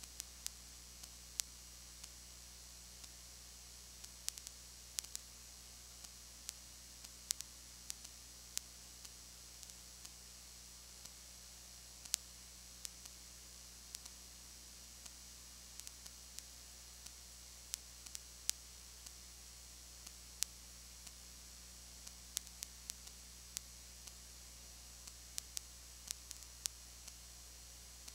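Recording noise only: a steady hiss and a low hum, with scattered sharp clicks at irregular intervals, one or two a second. No crowd or game sound comes through.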